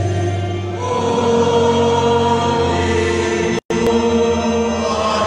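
Congregation singing together in long held notes. The sound cuts out for an instant about three and a half seconds in.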